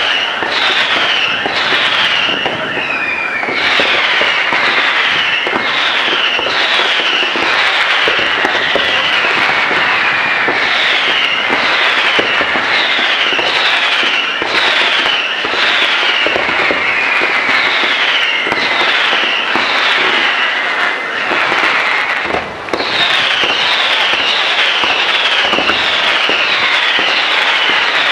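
Fireworks display firing without a break: a quick run of short whistles, each falling in pitch, about two a second, over a steady crackle and pop of bursts.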